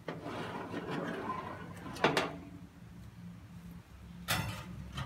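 Square metal cake tin being pulled out of a countertop toaster oven with a towel: cloth rustling and metal scraping on the oven's wire rack, with a sharp clank about two seconds in and another metal knock a little past four seconds as the tin is set down on a wire rack.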